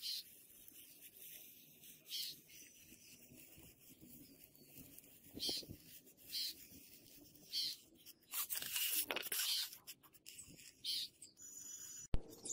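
Fingers rubbing and handling a styrofoam block: short scratchy rubs every second or so, a longer run of rubbing about eight to ten seconds in, and a sharp click near the end.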